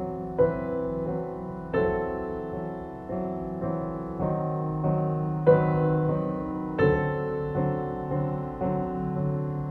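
Sad background piano music: slow, separate notes and chords, each left to ring.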